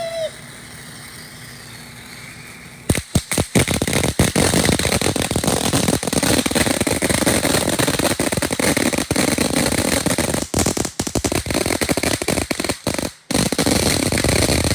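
'Jam Box' consumer firework cake going off: a few sharp bangs about three seconds in, then a dense, continuous barrage of rapid crackling pops, with two brief gaps near the end.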